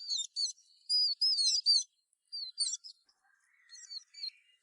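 Young songbirds calling in four quick clusters of high, up-and-down chirps: the begging calls of hand-fed fledglings.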